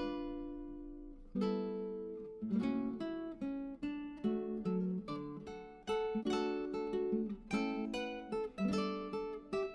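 Background music: acoustic guitar played with plucked and strummed chords that ring and fade.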